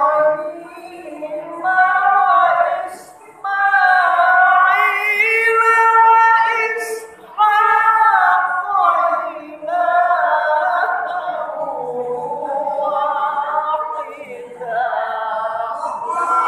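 A man's solo Qur'an recitation (tilawah), sung in the melody of maqam Hijaz in its 'kurr' variation: long, ornamented phrases that wind up and down in pitch, with short breaks between them about three and seven seconds in.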